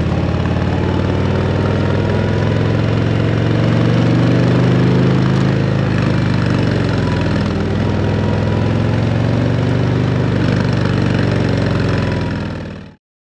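Harley-Davidson CVO Road Glide ST's Milwaukee-Eight VVT 121 V-twin running steadily at low revs through a Screaming Eagle exhaust, a little louder about four seconds in. The sound fades out quickly near the end.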